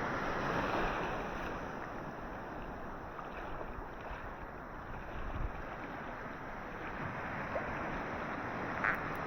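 Ocean surf washing and churning in the shallows, a steady rush that swells in the first second and then eases, with wind buffeting the microphone. A brief sharp click near the end.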